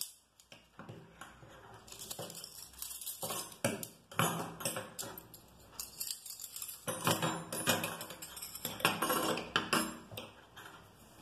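Metal spoons clinking and clacking as they are set down one after another on a wooden tabletop, with a scatter of light taps and handling noise.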